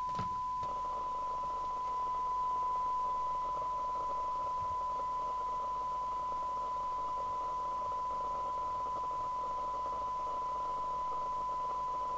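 Steady single-pitched test tone from the Mustang 3000 CB radio's receiver as its IF coil is tuned, with a band of receiver hiss coming in under a second in.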